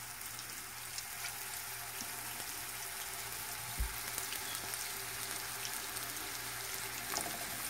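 Ground-lamb meatballs frying in hot olive oil in a pan: a steady sizzling hiss with small crackles and pops. A single soft knock comes about four seconds in.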